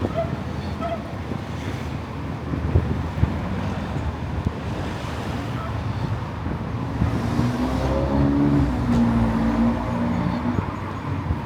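Road traffic on a town street, a steady rumble of passing cars. About seven seconds in, a vehicle's engine comes close and gets louder, then fades.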